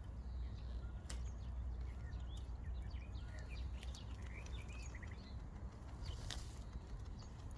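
Small birds chirping faintly in short, quick calls over a steady low rumble, with two sharp clicks, one about a second in and one near the end.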